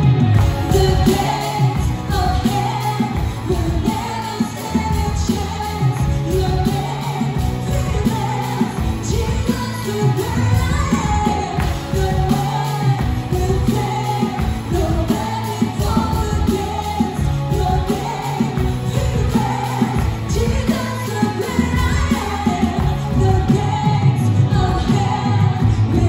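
Contemporary worship song performed live: a woman sings lead, backed by more women's voices and a full band.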